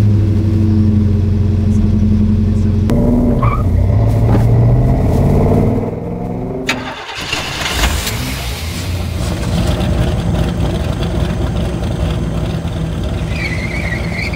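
1968 Shelby GT500's 428 V8 running just after start-up, its revs rising and settling a couple of times. It cuts off abruptly about seven seconds in, giving way to a different, steady noisy sound.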